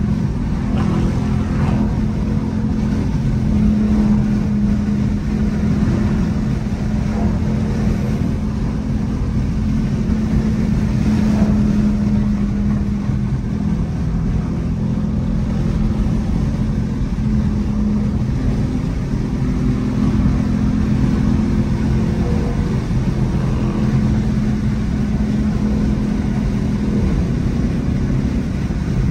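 Car engine and road noise heard from inside the cabin: a steady drone while cruising at over 100 mph on the highway.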